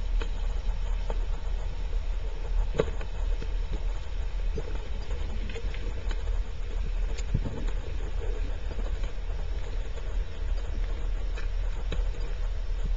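Underwater sound picked up by a camera in a waterproof housing: a steady low rumble with scattered sharp clicks and knocks.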